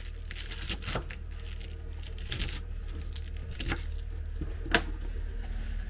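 Food-preparation handling noises: light rustling with scattered clicks and knocks, the loudest a single sharp knock almost five seconds in, over a steady low hum.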